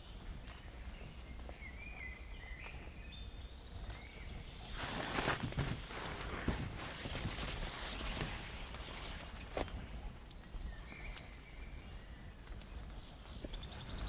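Footsteps of a walker on a wet forest path after rain, with a louder stretch of rustling, crunching steps through the middle. A few short bird chirps come early on and again near the end.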